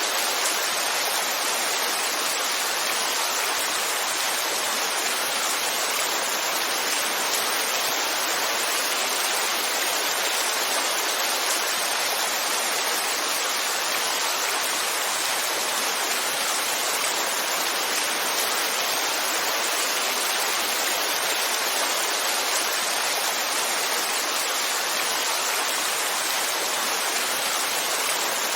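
Heavy rain falling steadily: a dense, even hiss with no thunder or separate drops standing out.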